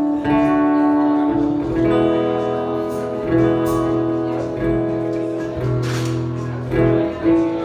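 Music: held, strummed chords that change every second or so.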